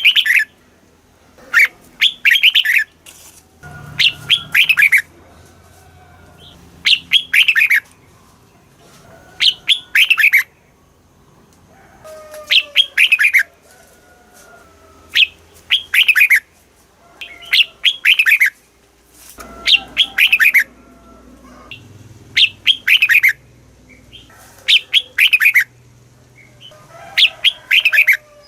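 Red-whiskered bulbul singing: a short, loud phrase of quick descending whistled notes, repeated about every two seconds.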